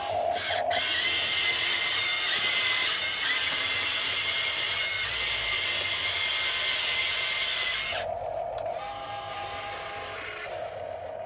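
Small electric motor of an RC model excavator whining steadily under load, a high-pitched power-tool-like whine that cuts back to a quieter, lower hum about eight seconds in.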